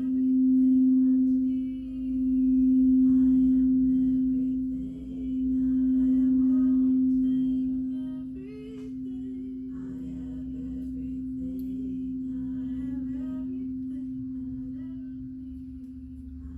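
Singing bowl ringing with one steady low hum that swells and dips every two to three seconds, then settles quieter and steadier about halfway through.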